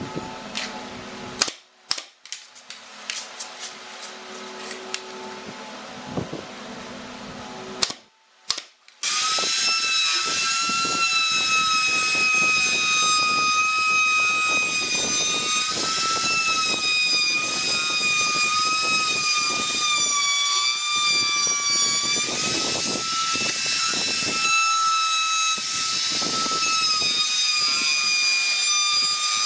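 A few sharp knocks and taps over the first several seconds. About nine seconds in, a handheld trim router starts up and runs steadily with a high whine that wavers slightly as it routes the edge of a pine tabletop.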